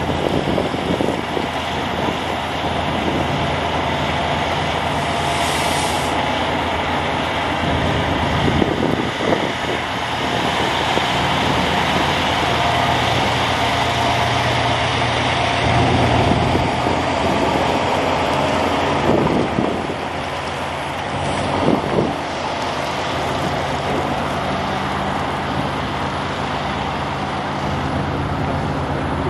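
Kenworth prime mover towing a B-double race car transporter, its diesel engine running as the truck rolls slowly past, with a brief hiss about six seconds in.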